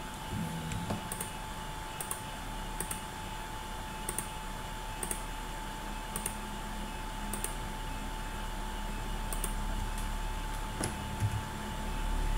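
Computer mouse clicking: about nine sharp single clicks at uneven intervals as curves are picked one by one, over a faint steady tone.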